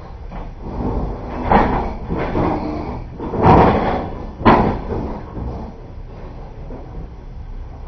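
Passenger train carriage in motion: a steady low rumble broken by three loud clunks, about one and a half, three and a half and four and a half seconds in.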